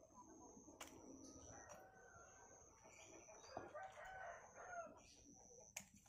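Sharp snips of scissors cutting bonsai branches, the clearest near the end, over faint chickens clucking and crowing in the background.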